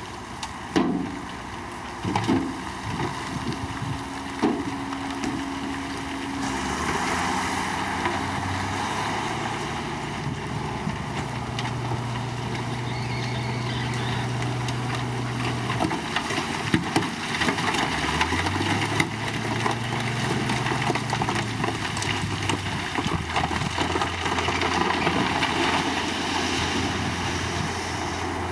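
Komatsu D53 bulldozer's diesel engine running steadily under work, its pitch rising about two-thirds of the way through as it revs up. A few sharp knocks sound in the first few seconds.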